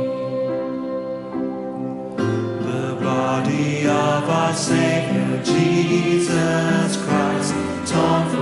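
A recorded communion hymn: voices singing with instrumental accompaniment, a new verse starting about two seconds in.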